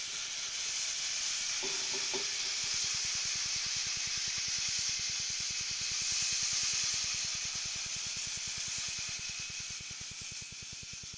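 A long, steady hissing sound effect that fades away near the end, with a faint, fast, low pulsing beneath it.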